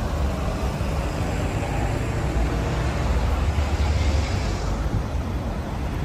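Road traffic on a busy city street: cars and buses passing in a steady wash of noise, with a deep rumble that swells about three to four seconds in.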